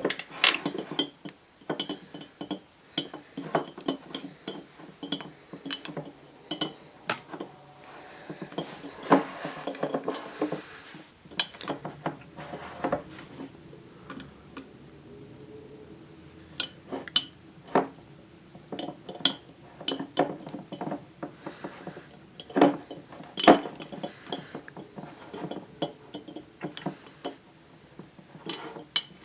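Plastic Rubik's Cube pieces clicking and clinking against a glass jar and against each other as the cube is assembled inside the jar, in irregular sharp clicks with short pauses.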